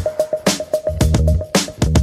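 Background electronic music with a steady beat: drums and bass under one note repeated quickly.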